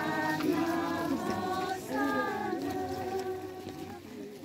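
A crowd of men's, women's and children's voices singing a hymn together as the procession walks, growing a little softer near the end.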